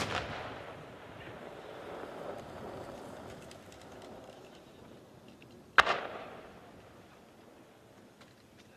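Two firework shells bursting, one right at the start and one about six seconds in. Each sharp bang is followed by a rumble that fades away over a few seconds.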